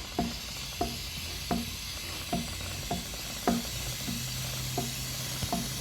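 Aerosol chain lubricant spraying onto a motorcycle chain in a steady hiss while the rear wheel is turned by hand, with light clicks at regular intervals, about one every two-thirds of a second.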